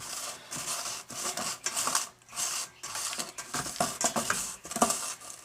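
Rubber spatula scraping creamed butter down the sides and bottom of a mixing bowl in repeated short strokes, roughly two a second.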